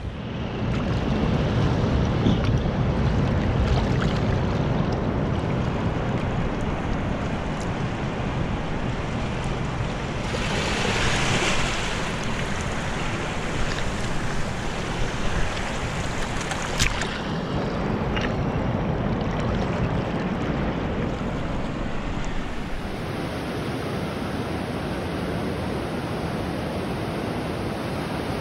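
Ocean surf breaking and washing up a sandy beach, a steady wash with one louder surge of foaming water about ten seconds in. Wind rumbles on the microphone.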